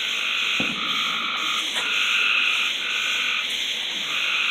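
A steady night chorus of calling animals: overlapping high trills at a few pitches, each starting and stopping every second or so. A soft thump comes about half a second in.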